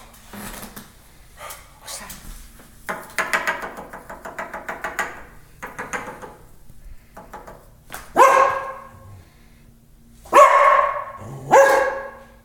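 Cocker spaniel barking: three loud barks, the first about eight seconds in and two close together near the end.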